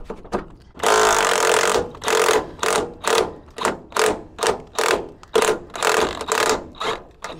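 Impact wrench with a 13/16 socket loosening a truck's cab-mount bolt: a one-second run, then about ten short trigger bursts at roughly two a second.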